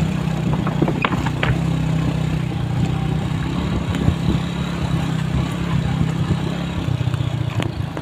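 A motor vehicle's engine running steadily while on the move, with a few sharp clicks and rattles from the ride.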